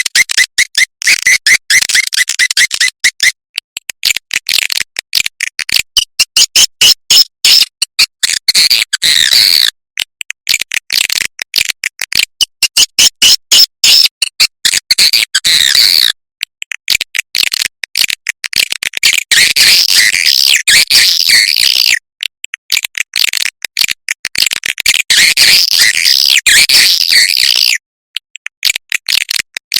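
Swiftlet lure recording: dense, rapid, high-pitched chirping and twittering of edible-nest swiftlets, the kind of call played in swiftlet houses to draw the birds in to roost. It comes in stretches of about six seconds separated by short breaks.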